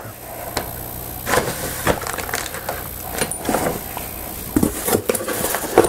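Kraft packing paper and a cardboard box being handled, with scattered irregular rustles and light knocks.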